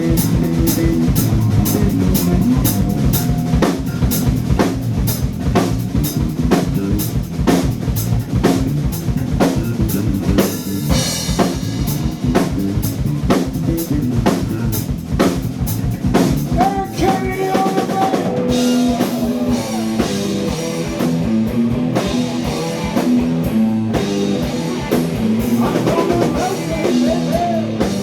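Live heavy blues-rock band playing loudly: electric guitar over bass and a driving drum kit, with a sustained, bending lead guitar line through the second half.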